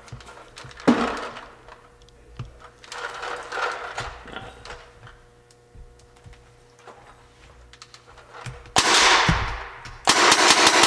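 Clicks and rattles of a Tippmann 98 Custom paintball marker being handled, then sharp hissing of compressed gas as a tank is screwed onto the marker's air line: one short hiss about nine seconds in, then a loud steady hiss from about ten seconds in.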